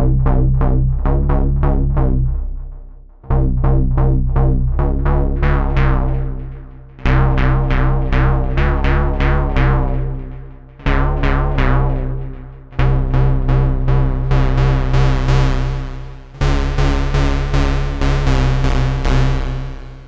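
GForce Oberheim SEM software synthesizer playing its "Band In The Box" preset: rapid repeated plucked synth notes over a steady deep bass. The pattern runs in phrases that fade away and restart about every three to four seconds, growing brighter in the later phrases.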